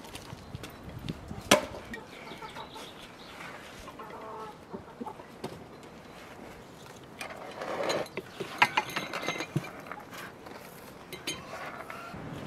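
Chickens clucking, with a few sharp knocks and clinks of dishware being set down on a table: the loudest about a second and a half in, and a close pair a little after eight seconds.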